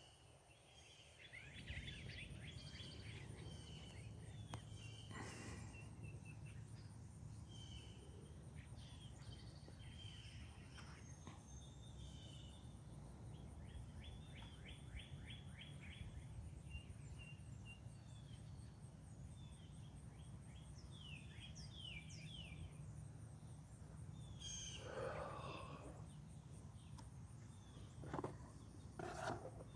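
Wild songbirds chirping and trilling, many short calls over a faint steady low rumble and a faint steady high whine. Two louder, lower calls stand out near the end.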